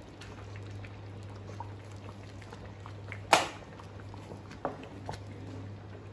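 A wooden spoon stirring thick rice porridge in a stone-coated pot, with small scrapes and taps, a sharp knock of the spoon against the pot a little over three seconds in and a lighter knock about a second and a half later. A low steady hum runs underneath.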